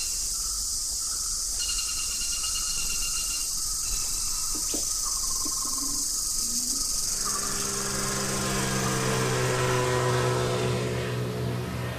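Tropical forest ambience: a dense, steady chorus of insects with short repeated high calls. About seven seconds in, a low sustained drone comes in and grows louder.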